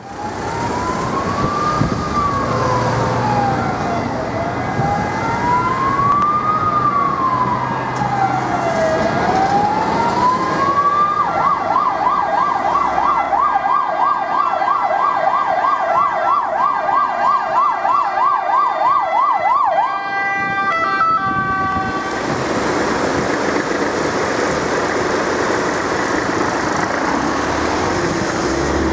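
Ambulance's electronic siren on wail, slow rising and falling sweeps about every four and a half seconds, switching to the fast yelp tone about eleven seconds in. The siren cuts off near the twenty-second mark, leaving road traffic noise.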